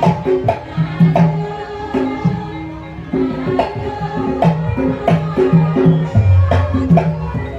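Traditional Indonesian accompaniment music for a pencak silat seni form, with regular sharp percussion strokes over held melodic notes, and a deep low note about six seconds in.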